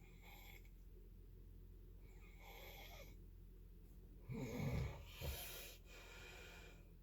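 A sleeper snoring: soft breathing, then two loud snores in quick succession about four seconds in.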